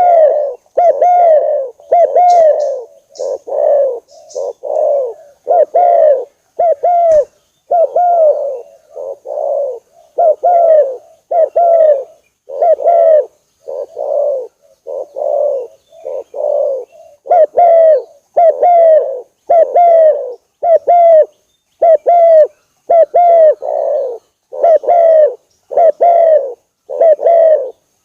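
Spotted dove (tekukur) cooing: a steady run of short, mellow coos repeated about three every two seconds, a wild bird's lure call.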